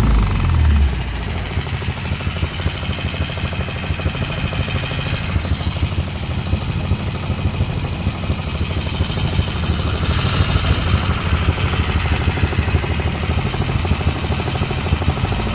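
Worn-out Honda GX160 5 hp single-cylinder engine on a Mud Skipper Twister mud motor, settling to a steady idle as its revs drop about a second in.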